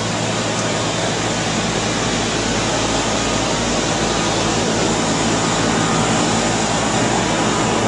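Steady machine noise, a low hum under a broad hiss: a cellulose insulation blowing rig running and spraying wet cellulose into the wall cavities.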